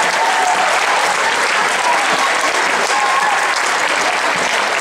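Sustained applause from a large crowd of schoolchildren, with a few voices calling out over the clapping.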